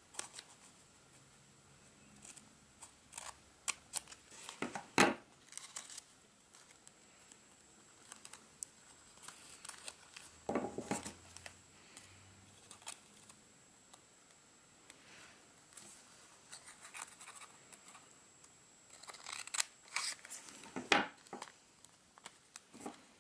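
Scissors snipping through folded origami paper in short, irregular cuts, with light paper rustling as the model is handled. The loudest snips come about five seconds in, around the middle and near the end.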